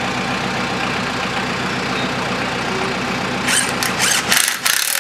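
Tractor engine idling steadily. About three and a half seconds in, a cordless drill runs in short bursts, driving the clamp bolt on a hiller disc's mount, and the engine hum drops out near the end.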